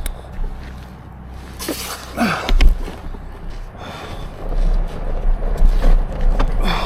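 A person breathing hard, with short heavy breaths about two seconds in and again near the end, over a steady low rumble.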